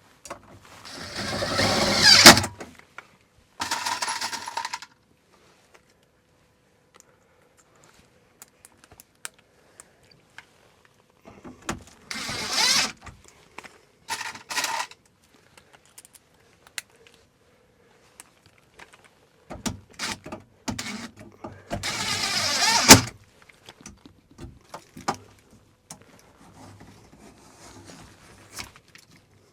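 Hand work on a metal electrical box and its wiring: separate bursts of scraping and rattling with scattered small clicks. The loudest bursts rise and end in a sharp click, about two seconds in and again near twenty-three seconds.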